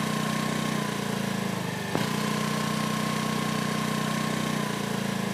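Motor scooter's small engine running steadily, with a short click about two seconds in.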